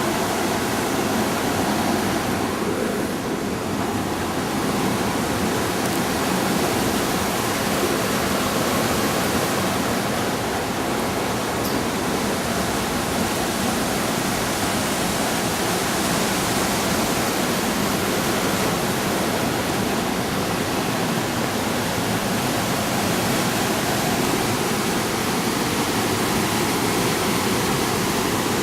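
Steady, unbroken rushing of fast-flowing water.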